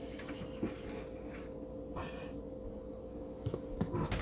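A faint steady hum under a few light handling clicks, then a cluster of small clicks and knocks near the end as the hinged lid of a plastic tub is pressed shut.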